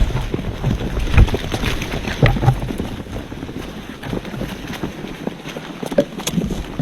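Birds scuffling and flapping over a deer carcass, with irregular knocks and thuds. Wind rumbles on the microphone, strongest in the first half.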